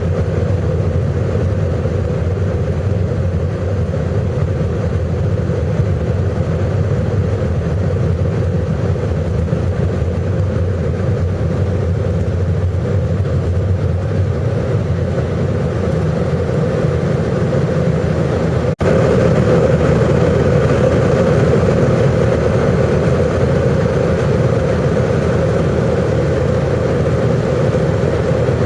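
Jet engine and airflow noise heard from inside an airliner's passenger cabin during takeoff: a steady low rumble with a droning hum. It cuts out for an instant about two-thirds of the way through and comes back louder.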